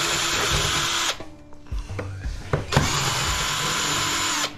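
Cordless drill-driver running as it backs out the two screws that hold a small fan motor in its cast-aluminum housing. It stops about a second in, and after a pause with a couple of light clicks it runs again for nearly two seconds near the end.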